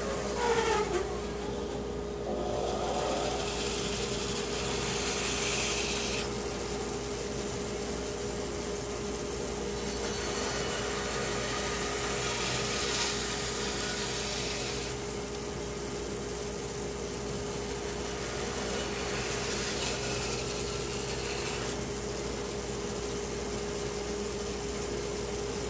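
Power saw running and cutting cherry wood, over a steady machine hum; the rasp of the cut grows louder in stretches and then eases.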